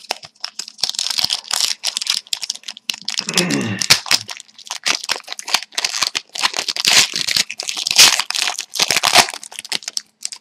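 Trading card pack wrapper being torn open and crinkled, with cards shuffled in the hands: dense, irregular crackling that runs on in fits and starts.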